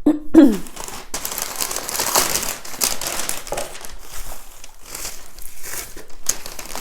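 Paper packaging crinkling and rustling as a box is unpacked by hand, with many small irregular crackles.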